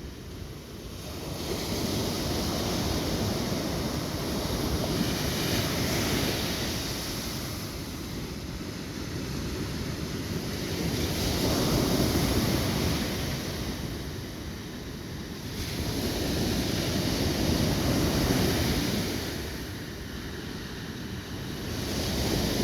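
Ocean surf: waves breaking and washing in, the noise swelling and fading in slow surges about six seconds apart.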